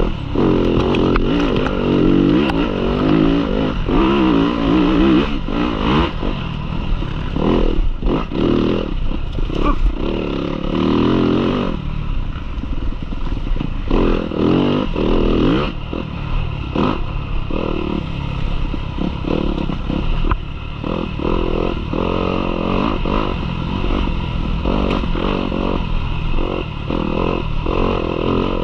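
Yamaha dirt bike engine revving up and down with the throttle as it is ridden hard off-road, with frequent knocks and clatter from the bike over rough ground.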